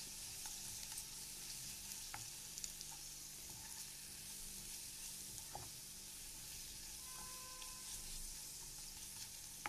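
Sliced red onions frying in hot oil in a nonstick pan, giving a steady sizzle, with soft scrapes and taps of a wooden spoon stirring them.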